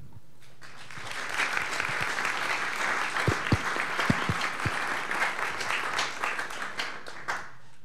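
Audience applauding: dense clapping that builds about a second in and stops fairly suddenly near the end, with a few low thumps midway.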